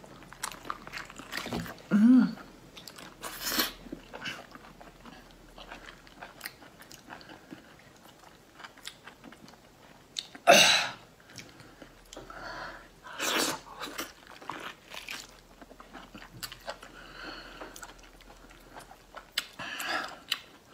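Close-up biting, sucking and chewing of raw lobster meat: wet smacks and many small clicks, with a few louder bites or slurps, the loudest about halfway through.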